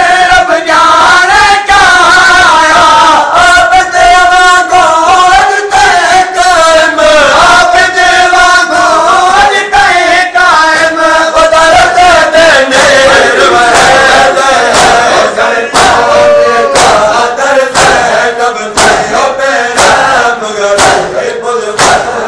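Crowd of men chanting a noha in unison during matam, loud and sustained. In the second half, sharp rhythmic hand strikes on chests come in at about two a second along with the chant.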